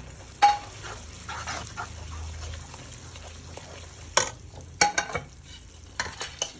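Metal spoon stirring and scraping a thick egg halwa in a nonstick pan, with a light sizzle of the ghee. Several sharp clacks of the spoon against the pan, the loudest about half a second in and a cluster near the end.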